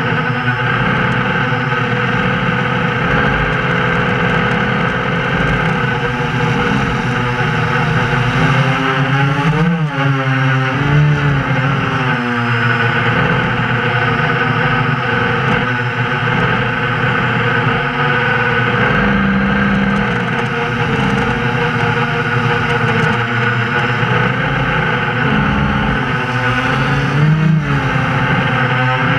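FPV multirotor drone's electric motors and propellers running, heard from the drone itself, a steady mix of several tones over a rushing noise. The pitch dips and climbs back about ten seconds in, and briefly again near the end.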